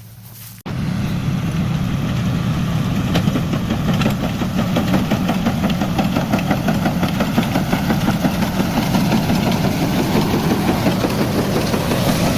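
Engine running steadily, loud and even, with a fine rapid rattle over it; it starts abruptly less than a second in.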